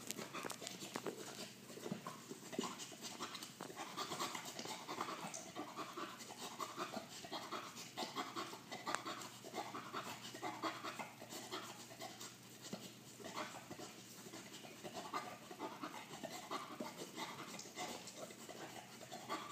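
English Bull Terrier panting steadily, about two breaths a second, while licking and mouthing a toy ball, with small wet clicks of mouth on the ball.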